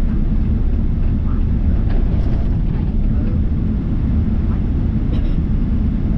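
Steady low rumble of a Boeing 777-300's engines and airframe heard from inside the passenger cabin while the airliner taxis.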